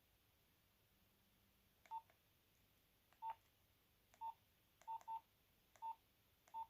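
Nokia 8210 keypad being pressed: seven short beeps of one mid pitch, each with a small click of the key, spaced irregularly, two of them in quick succession about five seconds in.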